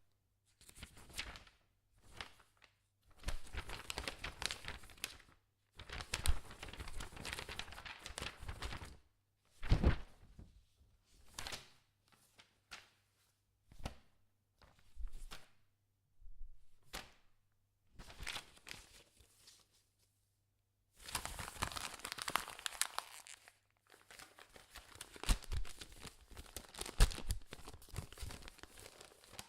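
A sheet of paper being crumpled and torn, in a string of crinkling, ripping bursts of a few seconds each with short silent gaps between them.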